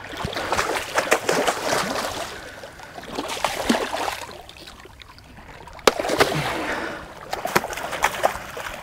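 A stingray flapping its wings in shallow water at the rocks, splashing and sloshing in bouts: one in the first two seconds, another starting about six seconds in with a sharp click, and a shorter one near the end.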